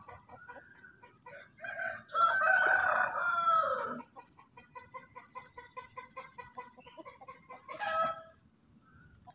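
Bird calls: one long call of about two seconds starting two seconds in, then a run of short quick notes at about four a second, and a brief louder call near the end.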